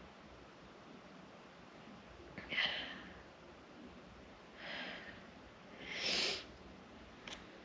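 A woman crying quietly, sniffling in three short breaths, about two and a half seconds in, near five seconds and at six seconds; the first is the sharpest.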